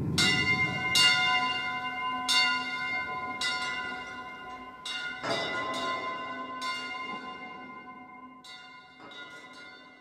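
Bells struck about ten times at uneven intervals, each stroke ringing on with several steady tones and fading slowly before the next.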